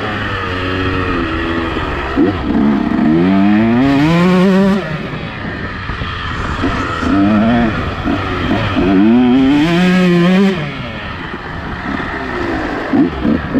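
KTM two-stroke motocross bike engine under hard acceleration, its pitch climbing steeply twice, about three and nine seconds in. Between the climbs it runs lower and uneven on part throttle, with a couple of short throttle blips near the end.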